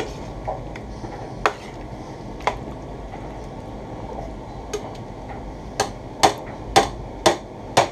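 Slotted metal spoon knocking against a stainless steel stock pot while curry is stirred: a few scattered clinks, then five sharp taps about half a second apart near the end.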